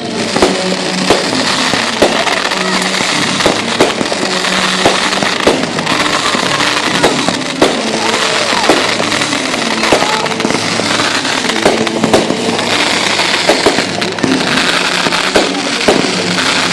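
Fireworks going off in a steady series of sharp bangs, more than one a second, over music playing.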